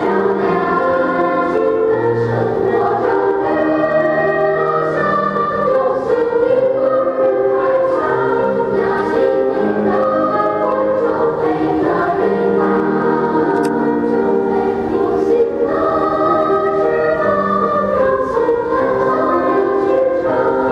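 Children's choir singing in harmony, with several voices holding long notes together.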